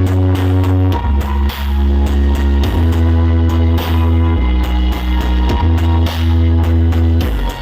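Loud music with guitar and heavy, sustained bass notes that shift every second or two with short sliding changes, played at full volume through a large outdoor sound system.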